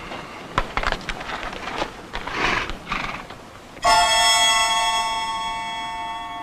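Scattered knocks and a horse whinnying, then, about four seconds in, a sudden loud dramatic music sting: a held orchestral chord that slowly fades.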